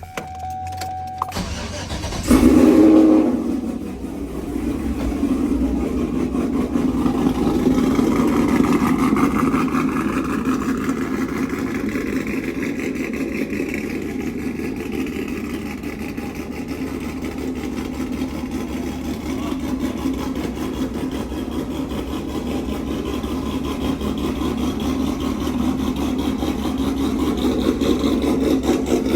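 Stock 5.3-litre V8 pickup engine on its factory exhaust cranking and catching about two seconds in, with a short flare. It then runs at a steady idle that climbs over several seconds and eases slightly, typical of a cold-start fast idle.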